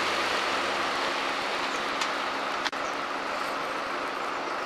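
Crane truck's engine running steadily, a constant low hum under an even rush of noise.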